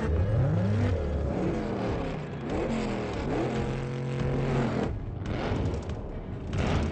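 Two car engines, a Maserati sedan's and an American muscle car's, revving in turn, the pitch climbing in quick repeated rises, then held steady for about a second. A short loud surge of noise comes near the end.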